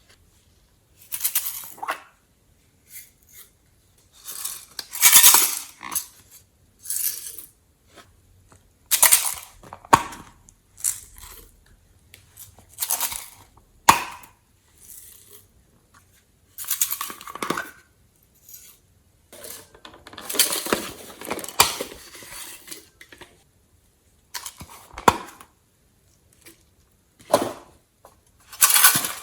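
Glossy slime being pressed and stretched by hand, making bursts of clicking and popping every second or two with short pauses between.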